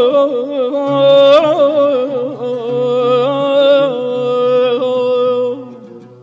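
Persian classical avaz singing: a male voice in wordless, warbling vocal runs (tahrir) over low held instrumental notes, fading out near the end.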